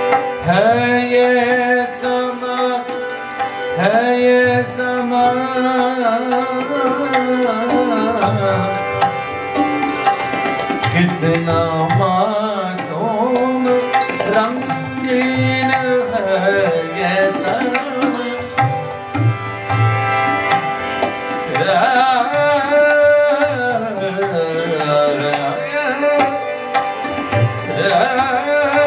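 Tabla playing a ghazal accompaniment, with the bass drum's pitch gliding up and down under the strokes, over sustained harmonium tones and hammered santoor.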